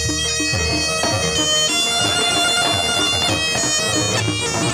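Jaranan gamelan music: a slompret (Javanese shawm) plays a held melody, changing note a few times, over quick, regular drum strokes and a steady lower tone.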